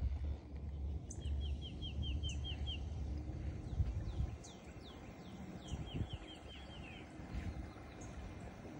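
A songbird singing two quick runs of short, down-slurred whistled notes, about five notes a second, over a low rumble.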